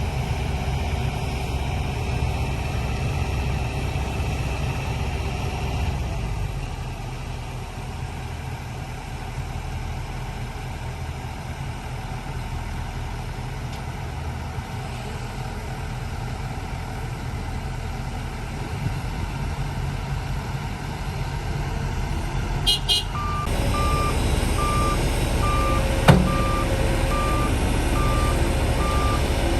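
A heavy earthmoving machine's diesel engine runs steadily. About three-quarters of the way through, a reversing alarm starts beeping at an even pace, and a single sharp knock follows a few seconds later.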